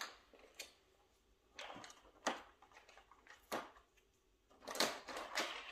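Cardboard Advent calendar being handled on a wooden floor: a few scattered faint taps and rustles, with a louder cluster of them near the end.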